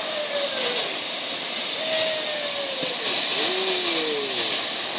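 Ground fountain fireworks spraying with a steady loud hiss, with a few faint whistles that fall in pitch.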